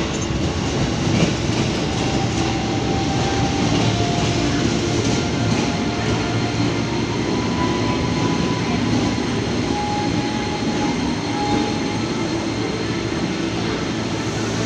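KRL electric commuter train running along the track: a steady rumble of wheels on rail, with a faint whine from the traction motors that comes and goes.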